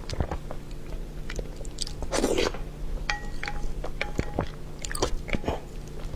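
A person chewing and biting food close to the microphone, with many small clicks and crunches and one louder, longer noisy sound about two seconds in.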